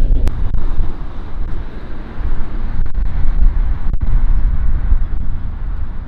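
Strong wind buffeting the microphone: a loud, gusting low rumble that rises and falls.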